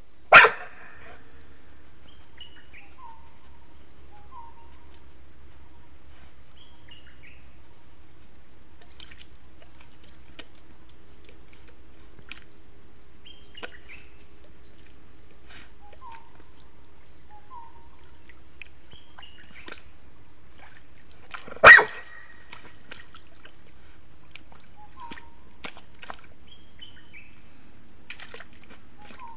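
A young brindle pit bull–type dog barking twice: two single sharp barks about twenty seconds apart, still with a puppy's voice at eight months. Faint short chirps come and go between them.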